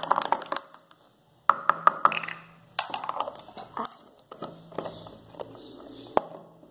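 Plastic taps and clicks from a plastic spoon stirring liquid in a small plastic baby bottle, then handling as the bottle's teat and cap are put on, with one sharp click about six seconds in.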